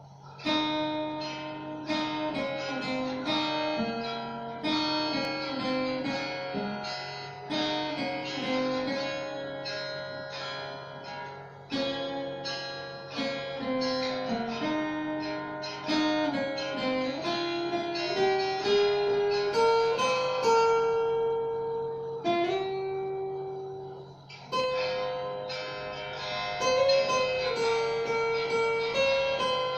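Cort guitar being picked: a melody of single plucked notes, climbing step by step in the middle, with a short break about three quarters through. The uploader admits the playing is off-key.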